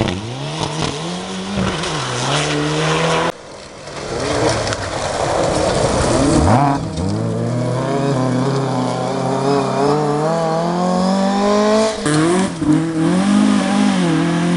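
Rally car engines revving hard on a gravel stage, several cars in turn, the pitch climbing and dropping through gear changes, with abrupt switches from one car to the next. In the middle, a Ford Escort Mk2 sliding through a corner holds one long rising engine note as it accelerates.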